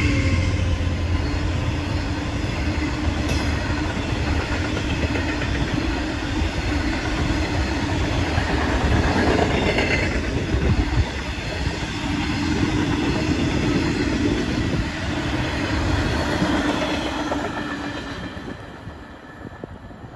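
Freight train of bogie hopper wagons, hauled by a Class 66 diesel, rolling past at speed, wheels rumbling on the rails. The sound fades away over the last few seconds as the end of the train goes by.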